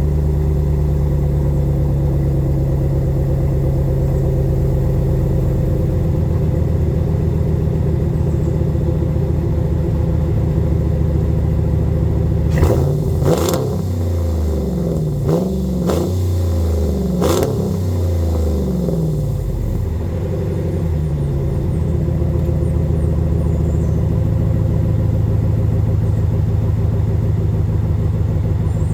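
Car exhaust with a Karnage Performance muffler and JBA ceramic-coated shorty headers, the factory catalytic converters and resonators still fitted. The engine idles, is revved four or five times in quick succession about halfway through, each rev rising and falling, with a few sharp cracks among them, then settles back to idle.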